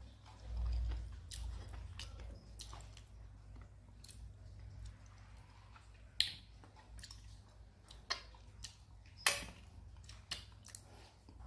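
Close-miked mouth sounds of eating by hand: chewing and finger-licking with scattered wet clicks and smacks, the two loudest about six and nine seconds in.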